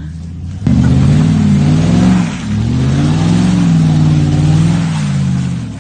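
2003 Chevy Avalanche's 5.3-litre V8, with no exhaust after the Y-pipe, running low and then revving hard under sudden throttle a little under a second in. The revs dip briefly just past two seconds, climb and hold again, then fall back near the end.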